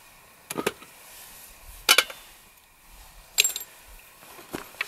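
A few sharp metallic clicks and clinks, about a second or more apart, one with a brief ring, from a pistol being handled in its wooden rest.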